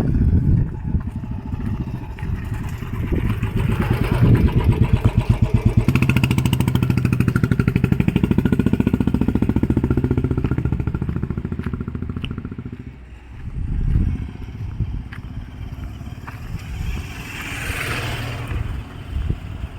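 A motor vehicle's engine running close by with a fast, even pulse. It builds over the first few seconds, holds loud and steady, then fades about two thirds of the way through, with smaller swells of traffic noise afterwards.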